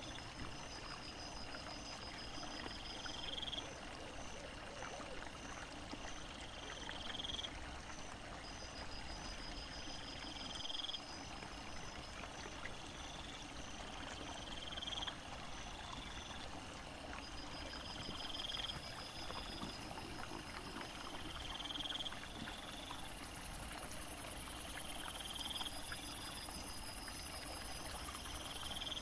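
Sped-up night ambience at a small woodland stream: a steady hiss of running water with repeated high-pitched chirping calls. The sound changes slightly every few seconds where short clips are joined.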